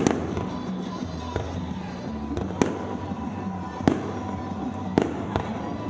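Aerial fireworks going off in sharp bangs, roughly one every second, with music playing underneath.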